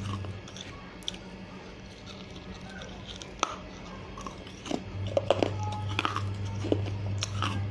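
Fired clay shard from a broken clay piggy bank crunching and cracking between the teeth as it is bitten and chewed: a string of sharp cracks and clicks, sparse at first and coming thick and fast in the second half.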